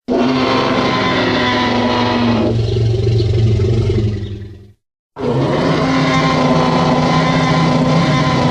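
Tyrannosaurus rex roar sound effect, a long, low, rough roar twice: the first fades away after about four and a half seconds, and after a brief silence the second begins.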